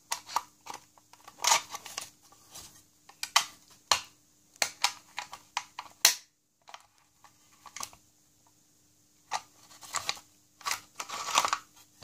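Irregular metallic clicks, scrapes and knocks from an old steel-cased rim lock being worked by hand, a key turned in the keyhole and a metal rod pushed into the mechanism, with the lock case handled.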